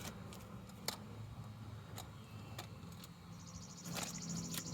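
Faint steady low hum with a few light clicks; from about three seconds in, a fast, high-pitched insect trill sets in and carries on.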